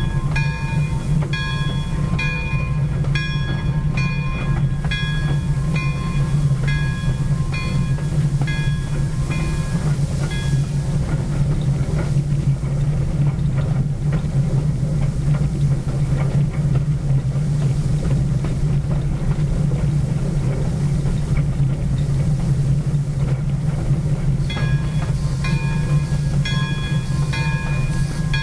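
Pere Marquette 1225, a Lima 2-8-4 Berkshire steam locomotive, running along the line, heard from its front end with a steady low rumble. Its bell rings about one and a half strokes a second, stops about 11 seconds in, and starts ringing again near the end.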